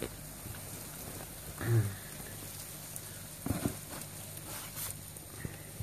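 Dubia cockroaches pattering and scrabbling on a plastic sieve tray as they are poured in a few at a time, with a few light knocks of the tray.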